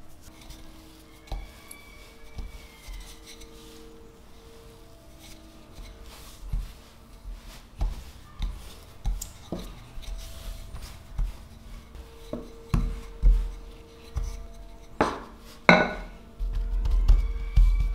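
A thin wooden rolling pin rolling and pressing dough on a wooden board: a series of soft, irregular thuds and knocks that get louder and more frequent, ending in a longer low rumble. Quiet background music plays under it.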